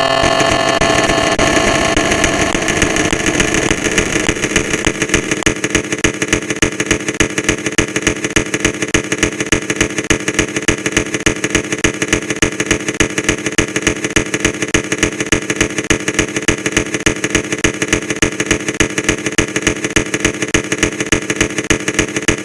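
Loud edited sound effect: a steady pitched, engine-like drone that within the first few seconds breaks into fast, regular pulsing and keeps pulsing evenly.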